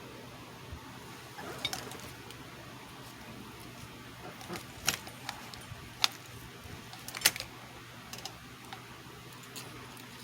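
Irregular light clicks and taps of small hard objects, the loudest about five, six and seven seconds in, over a steady hiss and low hum.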